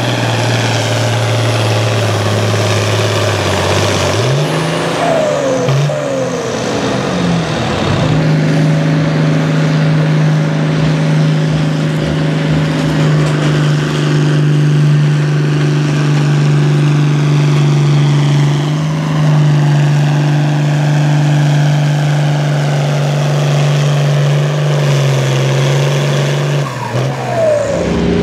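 International Harvester farm tractor's diesel engine under full load, pulling a weight-transfer sled down the track. The engine note climbs over a few seconds about four seconds in, holds steady at the higher pitch, and drops away near the end as the pull finishes.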